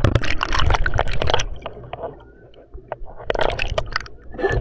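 Swimming-pool water heard with the microphone submerged: muffled churning and gurgling, loud for the first second and a half, then quieter, with a few sharp clicks a little after three seconds in.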